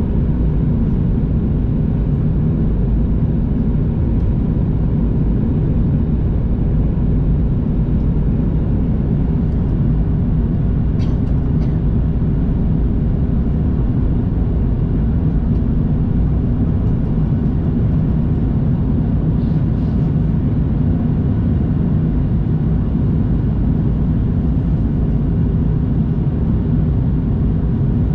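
Steady cabin noise inside a Boeing 737-800 in flight: the even rush of airflow over the fuselage with the hum of its CFM56 jet engines. A few faint ticks are heard about a third and two thirds of the way through.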